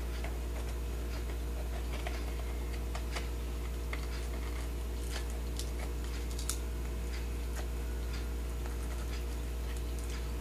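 Irregular faint clicks and crackles of a crab picking at and eating chips, over a steady low electrical hum.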